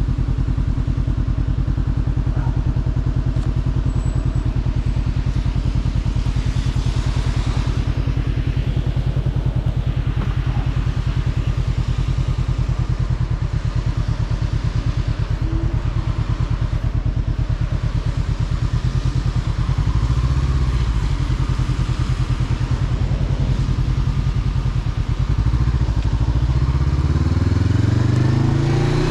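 Motorcycle engine running at steady low revs, then revving up near the end with a rising pitch as it accelerates.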